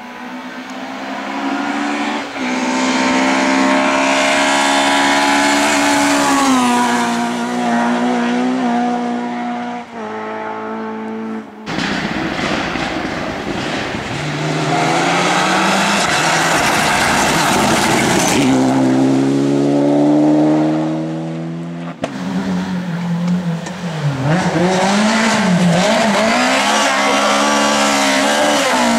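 Rally cars driven hard on a stage, their engines revving up and falling back through gear changes as they pass. The sound cuts abruptly about 12 and 22 seconds in to a different car.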